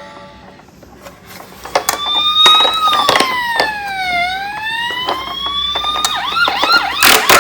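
Electronic siren of a toy emergency vehicle, starting about two seconds in as a tone that slides slowly down and back up, then switching to a fast yelping warble near the end. Small clicks sound along with it, and there are a few sharp knocks just before the end.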